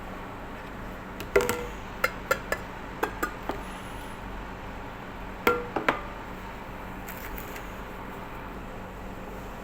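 A series of sharp clicks and knocks from hard objects being handled, some with a brief ring. There is a cluster of about seven a second or so in, then two more a little past halfway.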